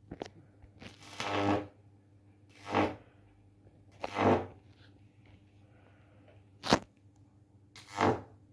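Microwave oven transformer humming steadily at mains frequency, with high-voltage arcs drawn from it in about five short buzzing bursts a second or so apart, one a sharp snap.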